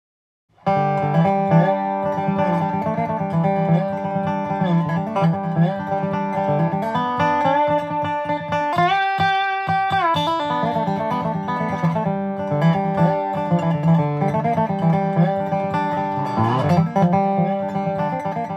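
Country-style instrumental music with plucked guitars starts about half a second in after a moment of silence. About nine seconds in, the notes slide up into a chord that is held for about a second before the picking resumes.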